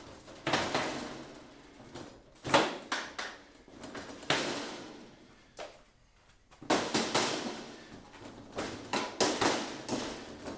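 Mallet knocking the top panel of a PVC-panel reptile enclosure backwards to unseat it from its slots: a series of irregular knocks, with the plastic panels shifting and rattling between them and a brief lull about halfway through.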